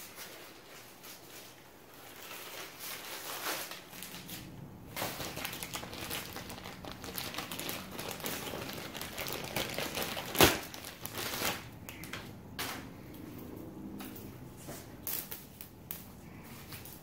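Crinkling and rustling as a coiled replacement jet-ski throttle cable is handled, with one sharp snap about ten and a half seconds in.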